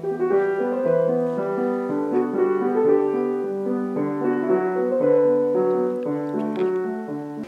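Piano music: a steady flow of melodic notes over a moving lower part, cutting off abruptly at the end.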